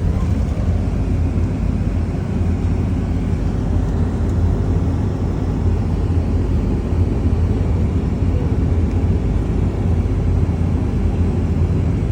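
Steady low drone of a moving vehicle, engine and road noise heard from on board.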